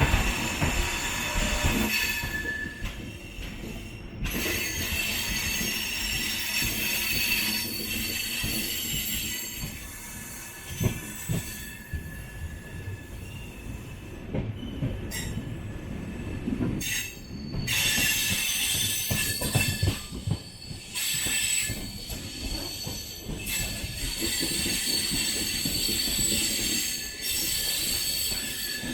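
Moving passenger train: wheels running over the rails with a low rumble and clatter, while high-pitched wheel squeal fades out and comes back a few times.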